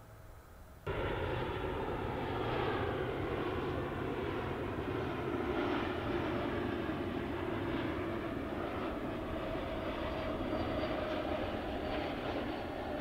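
Jet-engine noise of a landing Embraer E190-E2 airliner and its Pratt & Whitney PW1900G geared turbofans, a steady rushing sound with a faint whining tone. It starts abruptly about a second in.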